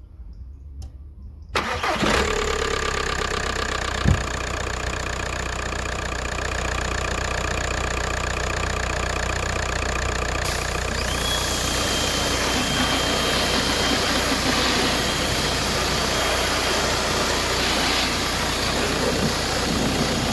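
A pressure washer's motor and pump start suddenly about one and a half seconds in and run steadily over a car engine idling. About halfway through, a hiss of water spray joins as the jet starts washing the engine bay.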